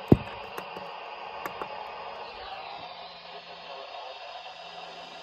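Weather radio receiver hissing with static between transmissions, with one sharp loud click just after the start and a few faint crackles in the first couple of seconds. The static is what the listener blames on his computer interfering with the station.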